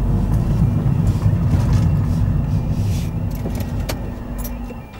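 Car engine and road rumble heard from inside the cabin, dying away as the car slows to a stop near the end, with a few sharp clicks just before. A faint two-tone level crossing alarm starts up as the car halts.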